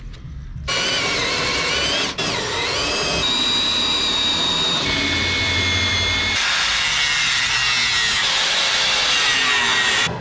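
Cordless drill running under load, its cutter bit drilling out spot welds in a steel body seam, with a high squeal from the cut that shifts in pitch several times. It starts under a second in and stops just before the end.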